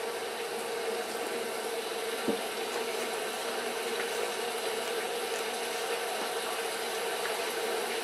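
Steady room noise with a faint hum, and one light knock a little over two seconds in as a ceramic mug is set down on a desk, followed by a few faint ticks as book pages are handled.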